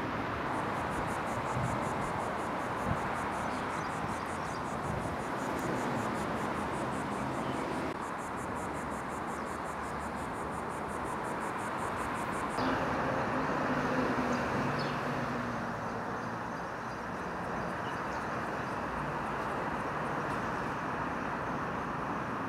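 Steady outdoor background noise with an insect's rapid, high-pitched pulsing trill over it, which stops a little past halfway through.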